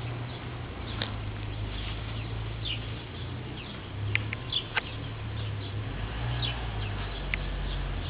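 Small birds chirping in the background: short, high, falling calls every second or two, with a few sharp chips near the middle, over a steady low hum.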